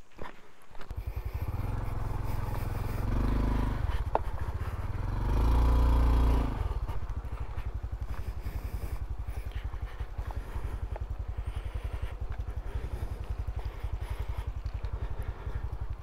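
Honda CT125's single-cylinder engine starting about a second in, revved up twice, then idling steadily.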